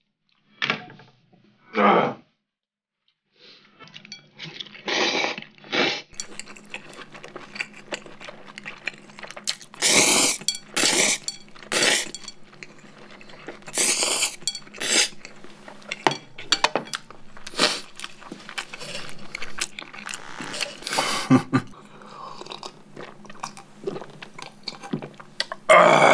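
Close-miked eating: chewing, with repeated loud slurps of cold spicy bibimmyeon noodles drawn from the bowl, several in a row through the middle. A strained throaty sound comes at the very end.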